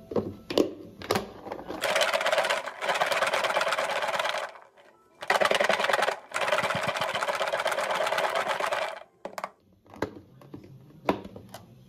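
Garlic cloves rattling fast inside a closed plastic food container as it is shaken hard to loosen their skins. The shaking comes in two long bouts of a few seconds each, with a short pause between them. A few separate knocks near the start and near the end come from the container being handled.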